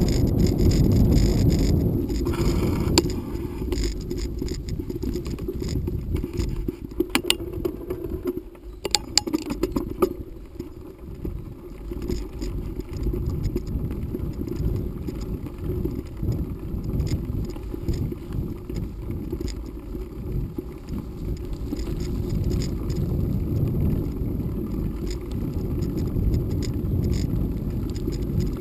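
Bicycle rolling over a dirt forest road: a steady, uneven rumble of tyres on the ground, with a cluster of sharp rattles of the bike over bumps about seven to ten seconds in.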